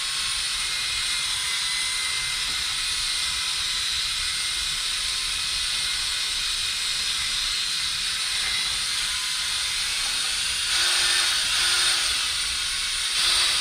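Ryobi cordless drill on its lowest speed, spinning a foam pad loaded with cutting compound against a plastic headlight lens: a steady hiss with a faint motor whine. It gets louder briefly twice near the end as the variable-speed trigger is squeezed harder.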